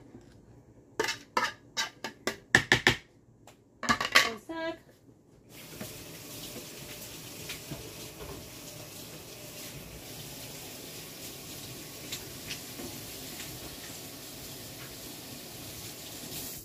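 Plastic parts of a microwave pressure cooker knocking and clicking together as they are handled: a quick run of sharp clicks in the first few seconds and a short cluster of knocks about four seconds in. From about five seconds on there is only a steady faint hiss with a few light ticks.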